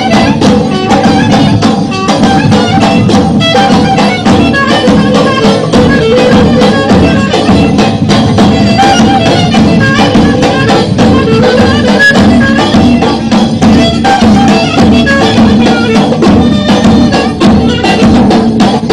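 Turkish zeybek folk dance music played loudly and without a break: a drum beat under a wind-instrument melody.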